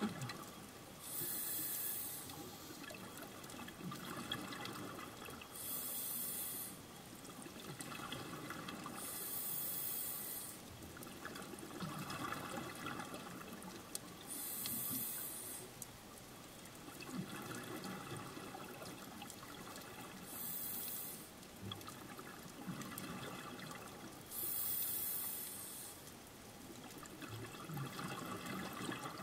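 A scuba diver breathing underwater through a regulator, with an even cycle of a short hiss and a longer bubbling rush about every four seconds, six breaths in all.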